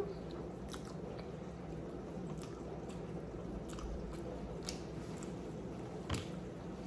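Close-up chewing of a mouthful of rotisserie chicken burrito, with scattered soft, wet mouth clicks and one sharper click about six seconds in.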